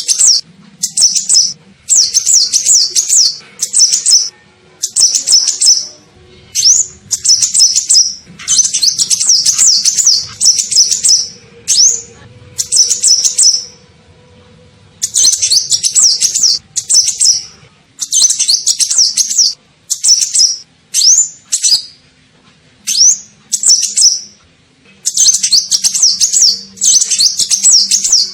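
Kolibri ninja sunbird lure call: repeated bursts of rapid, high twittering chirps. Each phrase lasts a second or two, with short pauses between them.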